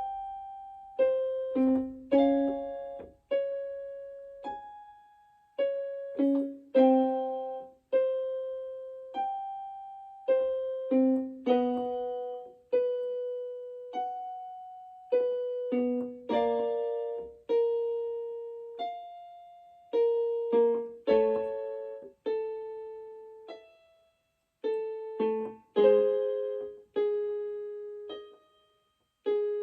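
Electric keyboard on a piano sound playing a slow, quiet run of single notes and small chords in the middle range, each struck and left to die away, about one a second: the accompaniment for a gentle vocal exercise.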